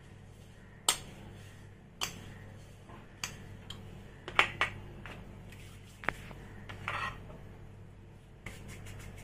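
Kitchen utensils clinking and tapping against a hard surface: about ten sharp, irregularly spaced knocks and clinks, with a low steady hum underneath.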